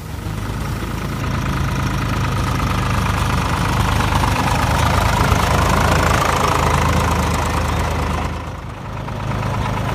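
SAME 603 4WD tractor's three-cylinder diesel engine running steadily as the tractor drives on beach sand. It grows louder through the middle and drops briefly near the end.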